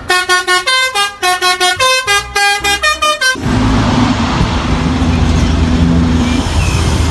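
A bus 'telolet' horn plays a quick tune of about a dozen toots, changing pitch. About halfway through it gives way to a bus engine running with a steady low hum.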